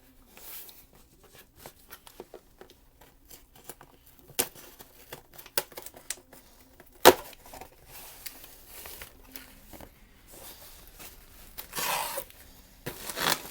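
Packaging being torn open and handled: crinkling and tearing with many scattered small clicks. There is one sharp, loud click about seven seconds in, and two longer tearing rips near the end.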